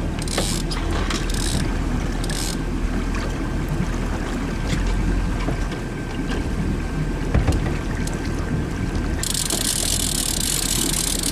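Sport-fishing boat's motor running steadily at low speed, mixed with wind on the microphone and lapping water. A brighter hiss joins about nine seconds in.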